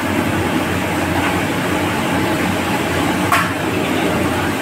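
Stir-frying in a steel wok over a gas burner: a steady rumble with sizzling, and a metal ladle knocking sharply on the wok about three seconds in.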